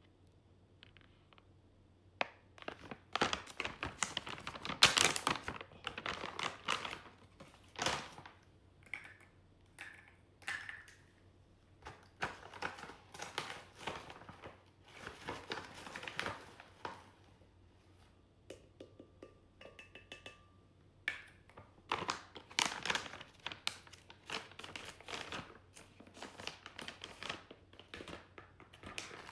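Plastic packaging crinkling and rustling as it is handled, in irregular bursts of crackles with pauses in between.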